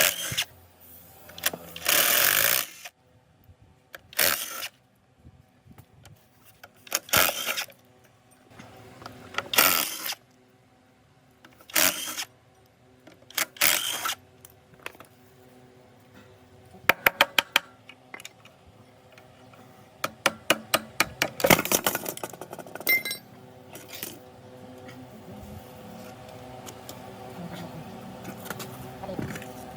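Mechanic's tools working on a diesel engine: separate noisy bursts about a second long, with runs of rapid clicking twice in the middle.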